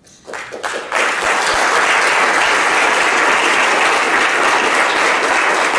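Audience applauding: a few scattered claps build within about a second into steady, dense applause.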